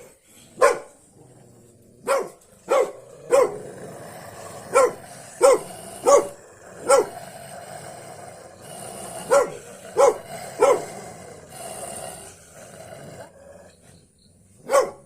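A dog barking at its own reflection in a mirror: about a dozen short, sharp single barks at irregular intervals, with a longer pause before a last bark near the end.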